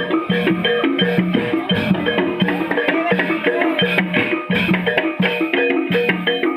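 Javanese gamelan accompaniment for a barongan dance: drums and bronze keyed metallophones playing a fast, loud, repeating pattern of short notes.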